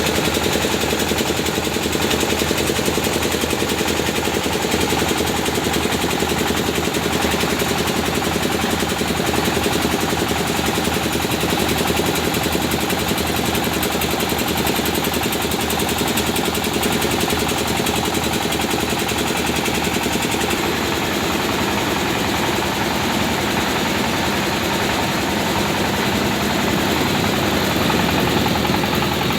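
Engine-driven rice husking machine (paddy huller) running steadily, with a fast, even engine beat.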